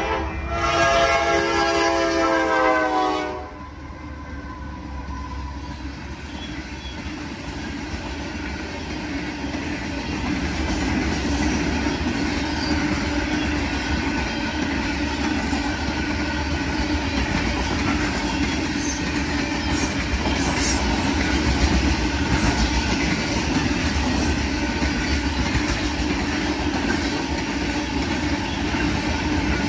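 Freight locomotive air horn sounding a loud chord as the train nears the crossing, its pitch sagging slightly before it stops abruptly about three seconds in. Then the rock train's hopper cars roll past with a steady rumble and wheel clickety-clack, growing louder from about ten seconds in, with a few brief metallic clanks.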